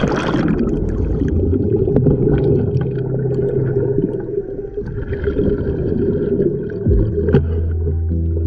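A diver's plunge into the sea fading in the first half second, then underwater bubbling and gurgling from the exhaust bubbles of his full-face diving mask, over a steady low drone, heard through an underwater camera.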